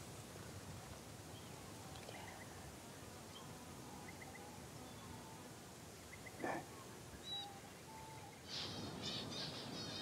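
Quiet outback bush ambience with scattered small bird chirps and one brief louder sound about six and a half seconds in, turning into a busy chorus of high twittering birdsong over the last second or two.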